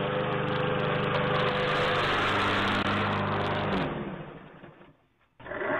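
Gasoline push lawn mower engine running steadily, heard through a doorbell camera's microphone. It fades out about four seconds in.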